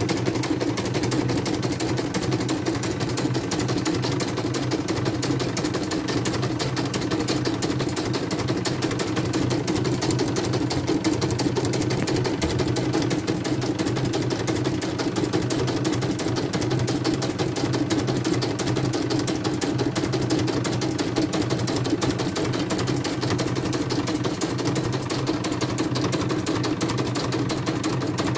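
CNY portable computerised embroidery machine stitching steadily: a fast, even run of needle strokes over the hum of its motor.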